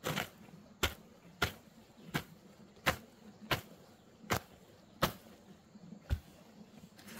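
A long-handled hoe striking the ground over and over in a steady rhythm, about three strokes every two seconds, as soil is dug out by hand for a foundation.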